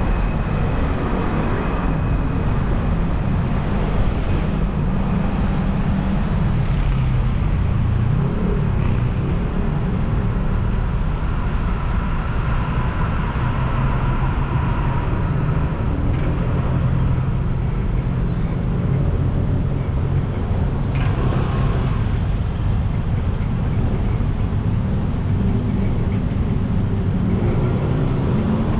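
Steady city street traffic: car and motorbike engines running and passing. A brief high squeak comes about two-thirds of the way through.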